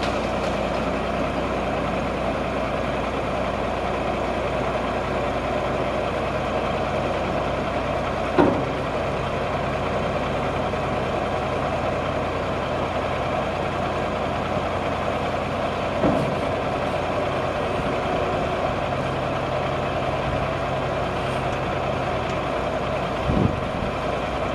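Kenworth T600 dump truck's Caterpillar 3406 inline-six diesel engine idling steadily. Three brief knocks come through over it.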